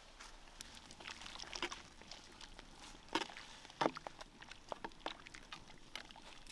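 Scattered light clicks and knocks of kitchen handling, the two sharpest about three and four seconds in.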